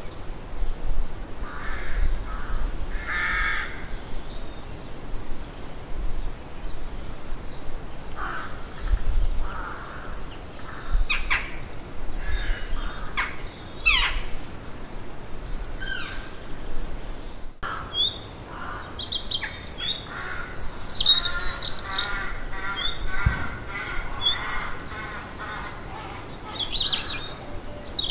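Rooks cawing, harsh calls repeated at intervals. After about eighteen seconds there are more calls, with higher, thinner chirping calls mixed in among the caws.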